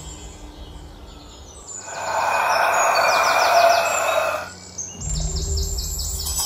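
Birds chirping in quick runs of short high calls. A loud steady hiss comes in at about two seconds and stops at about four and a half, while a low drone drops out and returns near the end.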